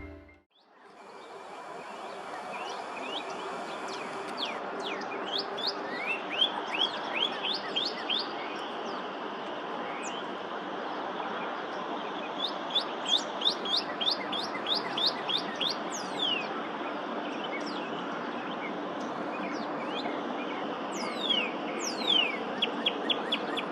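Songbirds calling: many quick, steeply falling chirps in runs, over a steady rushing background noise.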